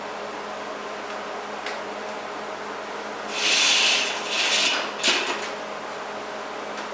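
MIG welding arc struck in two short bursts, a hissing crackle each lasting under a second, ending in a few sharp crackles, over a steady machine hum.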